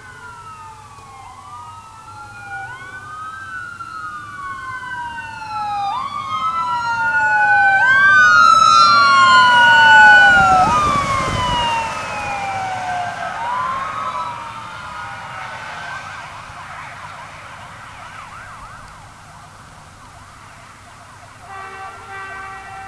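Ambulance electronic siren (Whelen 295HFSC9) on wail, sweeping up and down about every two and a half seconds as the ambulance passes. It grows louder to a peak about ten seconds in, then fades away, lower in pitch once the vehicle has gone by. A Buell air-horn blast cuts off right at the start, and the horns sound again near the end.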